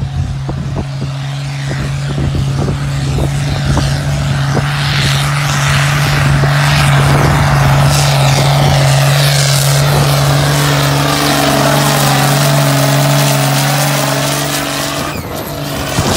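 Ford farm tractor's diesel engine pulling hard under heavy load up a hill, a loud steady drone. The engine note falls away about a second before the end as the tractor goes by.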